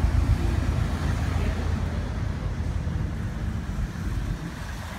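Military Humvees driving past one after another, their diesel engines making a steady low drone that eases off slightly as they pull away.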